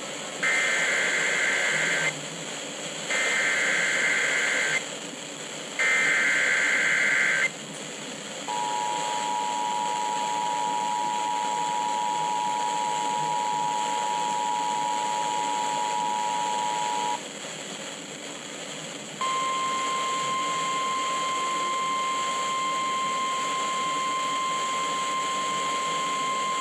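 Emergency Alert System tones received over the radio with background hiss: three short bursts of the SAME digital data header, then the two-tone EAS attention signal held for about nine seconds. After a two-second gap, a single steady tone starts: the 1050 Hz NOAA Weather Radio alert tone, signalling an incoming severe thunderstorm warning.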